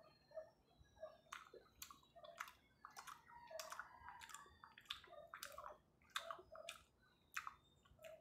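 Close-up wet chewing of sticky chocolate moron rice cake: mouth clicks and smacks several times a second, starting about a second in and thinning out near the end.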